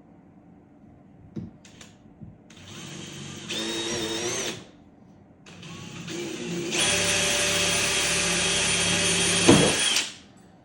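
Power drill with a small bit boring a hole through plastic: a short run, then a longer, louder run with a steady whine that cuts off shortly before the end.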